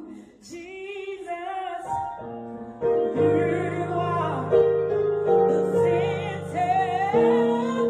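Gospel song: a solo voice singing with vibrato over sustained keyboard chords.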